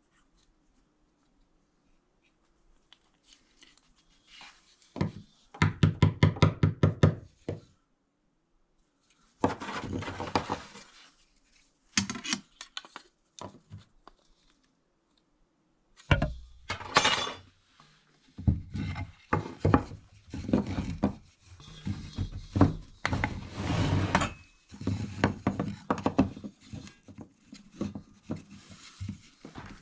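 Bench work with a wooden plough plane. A fast run of knocks comes first, then shorter bouts of clicks, then a long series of short scraping strokes as the plane works a groove along the edge of a board.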